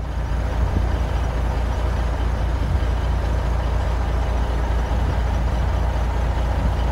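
Steady, loud low rumble with an even hiss over it, the running noise of a heavy vehicle such as a truck.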